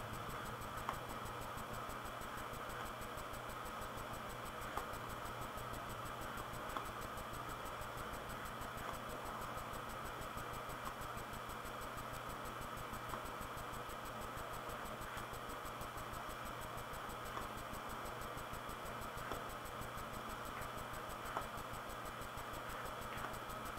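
Steady low hiss of room tone and microphone noise, with a few faint, isolated clicks scattered through it.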